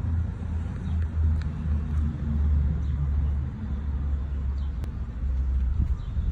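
2006 Audi A6 engine idling rough, a low rumble that wavers unevenly in level. The owner suspects a faulty PCV valve.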